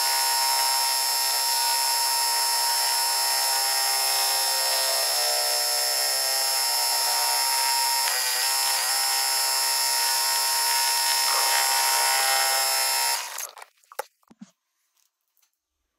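Multi-needle embroidery machine stitching a design into a beanie, played sped up as a dense, steady, high whir. It stops abruptly about 13 seconds in, followed by a few faint clicks.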